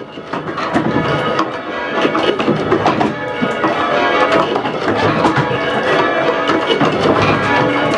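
A ring of six church bells, the back five cast by the Rudhall foundry of Gloucester, being rung full circle in quick succession. The strokes come in a steady run with their ringing tones overlapping.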